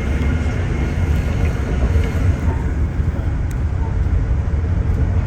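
Steady low rumble inside an Amtrak Amfleet cafe car running at speed: wheels on the rails and the car body riding. A few faint ticks and short squeaks come through over it.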